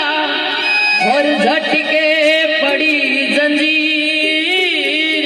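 Live Rajasthani devotional folk music, a Baba Ramdev bhajan: a melody that slides up and down in pitch over a steady, reedy accompaniment.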